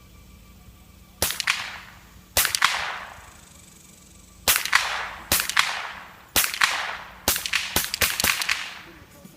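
A string of about ten gunshots, each crack followed by a short echoing tail: single shots at first, then a quicker run of shots near the end.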